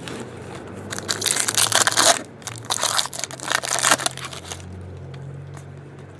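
Foil trading-card pack wrapper being crinkled and crumpled in the hands, in two bouts of dense crackling about a second apart.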